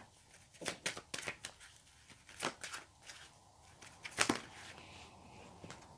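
Deck of tarot cards being shuffled by hand: soft, irregular card-on-card slips and flicks, with a sharper card slap a little after four seconds in.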